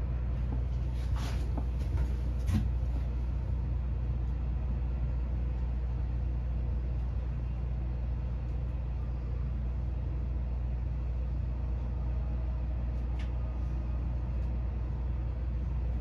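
Steady low mechanical hum of a running motor, with a few faint clicks from handling the fiber and splicing gear about a second in, at two and a half seconds, and near the end.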